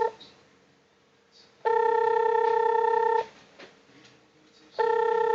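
Telephone-style ringing tone of a Wi-Fi doorbell call waiting to be answered: a steady, buzzy beep about a second and a half long, sounding once and then again near the end, with quiet gaps between.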